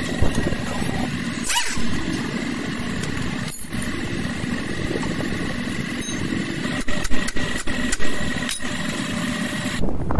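A motor runs steadily with a constant hum, and several sharp metallic clicks come in the last few seconds.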